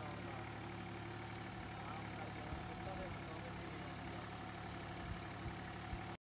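Tractor engine running steadily under load while puddling a flooded paddy field, heard faintly as an even low hum. It cuts off abruptly right at the end.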